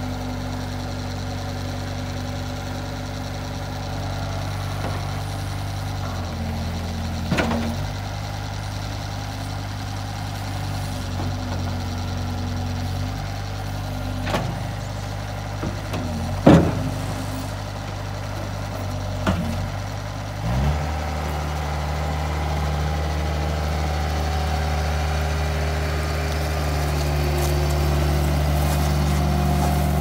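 Bobcat S185 skid steer's four-cylinder diesel engine running at idle, with a few sharp clanks from the loader, the loudest a little past halfway. About two-thirds of the way through the engine revs up and holds at a higher speed.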